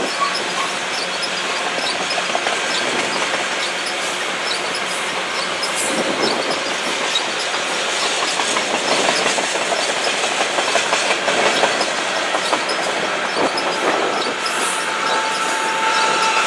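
Potash train's covered hopper cars rolling past, their steel wheels clattering steadily over the rail joints. A steady whine comes in near the end as the sound grows louder.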